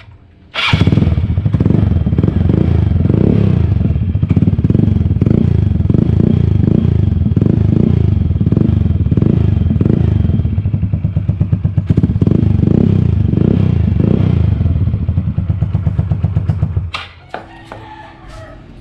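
Yamaha Mio Sporty scooter's single-cylinder four-stroke engine running loud through a Chicken Pipe V4 aftermarket exhaust with its silencer insert removed, swelling and falling in a regular pulse. The engine starts about half a second in and drops away near the end, leaving a few clicks.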